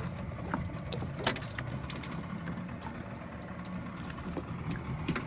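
Steady low rumble on board a small boat at sea, with scattered clicks and a sharp knock about a second in.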